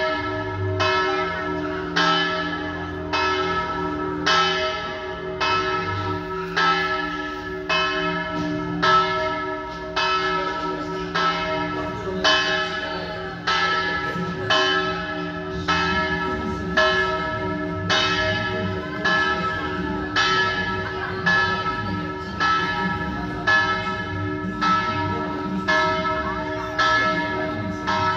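Several church tower bells ringing together: a steady run of strikes about one and a half per second, their tones ringing on between strikes.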